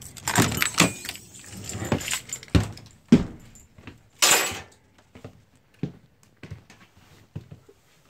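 A bunch of keys jangling and clicking in an RV's entry door lock as it is unlocked and the door is opened, a dense run of clicks for the first few seconds. A short rustling burst about four seconds in, then a few faint, scattered knocks and steps on the floor.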